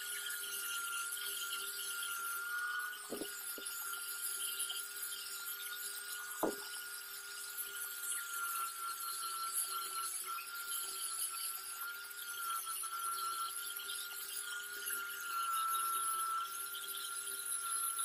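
Angle grinder with a sanding pad running steadily on wet cured epoxy resin, a steady motor whine over the hiss of the pad rubbing the surface. Two short clicks about three and six and a half seconds in.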